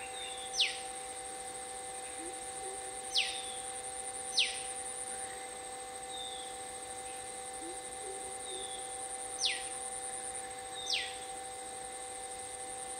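A bird gives five short, sharp down-slurred whistles, a second or more apart, over a steady high-pitched drone and a low steady hum.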